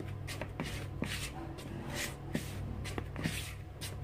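A fork scraping around a plastic mixing bowl, stirring dry flour in quick strokes, about two to three scratchy swishes a second.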